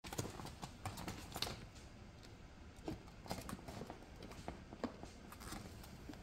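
A Pomeranian's paws and claws scrabbling and scratching inside a plastic tub as it tussles with a plush teddy bear. It makes irregular light clicks and rustles.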